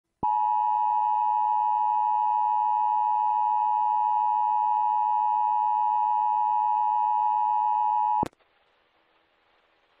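Emergency Alert System attention signal: the steady two-tone alert tone (853 and 960 Hz together), held for about eight seconds and then cut off abruptly. Faint radio-stream hiss follows.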